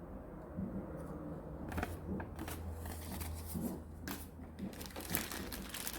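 Paper crinkling and rustling as it is handled, in a run of short irregular crinkles that starts a little under two seconds in. A faint low hum lies under it.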